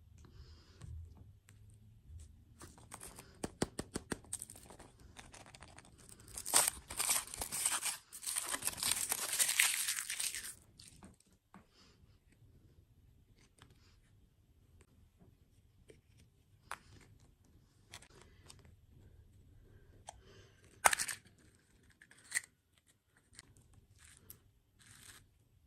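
Food packaging being torn open and crinkled. The tearing is loudest for about four seconds in the middle, with scattered clicks and taps before and after it.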